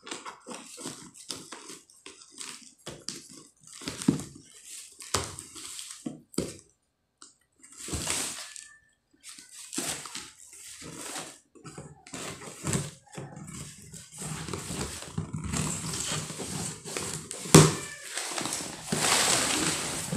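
A taped cardboard box being opened by hand: scissors snipping through the packing tape, paper wrapping torn and crumpled, and the cardboard flaps pulled apart, in a string of short irregular rustles, snips and scrapes. A single sharp knock stands out late on.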